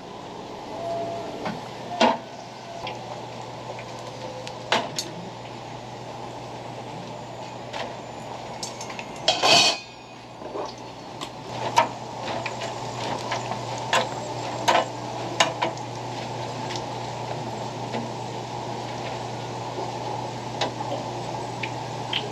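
Fish cake balls frying in a deep pot of oil with a steady sizzle, while metal tongs and a strainer clink and scrape against stainless steel trays and the fryer rim. The clinks come several times, and the loudest clatter comes about nine and a half seconds in.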